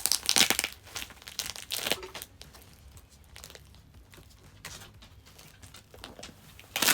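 Plastic mailer bag and packing tape crinkling and tearing as the package is wrestled open by hand. The crackling is dense for about the first two seconds, then thins to scattered faint crinkles, with one loud rustle near the end.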